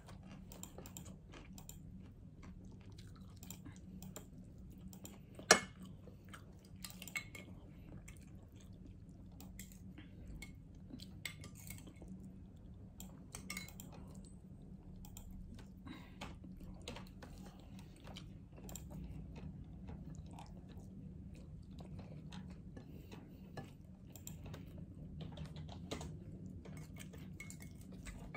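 Metal fork clinking and scraping on a glass dish, with chewing, over a low steady hum. One sharp clink about five and a half seconds in is the loudest sound.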